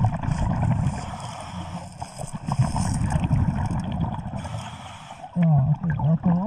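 Underwater scuba sounds picked up by a submerged camera: a rumbling, gurgling haze with bursts of hiss, typical of regulator breathing and exhaust bubbles. A muffled voice comes in about a second before the end.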